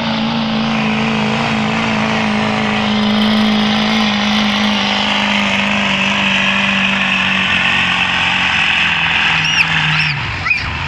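Diesel pickup truck engine under full load dragging a weight-transfer sled in a truck pull, running at high steady revs. The engine note sags slowly as the sled bogs it down, then falls away near the end as the pull stops. A few short whistles sound near the end.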